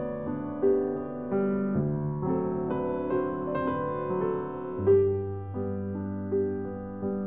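Solo piano music: a slow melody of single notes over held bass notes that change every second or two.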